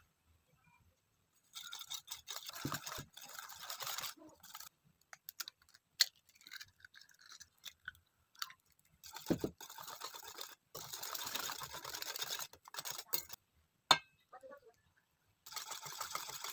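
Batter ingredients being mixed in a bowl: scratchy whisking strokes in bursts of a few seconds, with a couple of sharp clinks of the utensil against the bowl.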